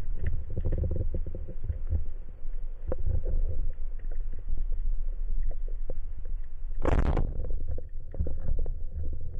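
Speargun firing underwater: a single sharp, loud crack with a hiss about seven seconds in, as the shaft is released. Before and after it, a low underwater rumble with scattered small clicks.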